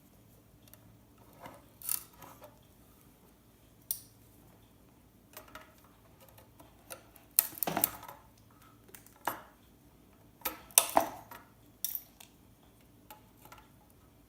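Small ceramic capacitors (MLCCs) being scraped and prised off a circuit board with a hard tool: irregular clicks and short scrapes, with a few louder scrapes in the second half.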